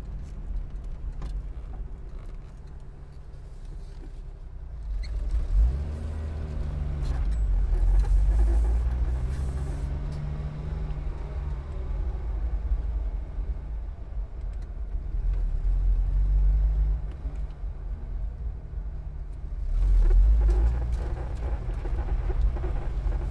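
Car driving at expressway speed: a steady low road-and-engine rumble with a shifting engine pitch, swelling louder several times.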